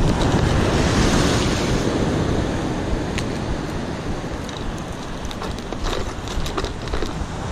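Sea surf washing over rocks, mixed with wind buffeting the microphone: a dense, steady rushing noise, loudest in the first couple of seconds and easing off after. A few light ticks sound over it near the middle and toward the end.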